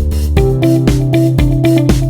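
Background music with a steady beat and a guitar-like plucked melody.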